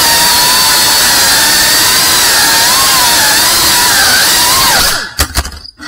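Cinewhoop FPV drone's motors and ducted propellers whining loudly as it flies, the pitch wavering up and down with the throttle. Near the end the sound drops out for most of a second, with a few clicks, then comes back.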